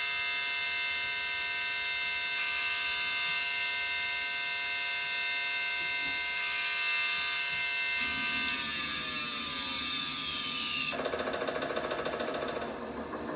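Direct-drive motor of an LG top-load washer whining steadily at high spin speed in the final spin. About eight seconds in, its pitch starts falling as the drum slows down. About eleven seconds in, the hiss drops off suddenly and a lower hum remains.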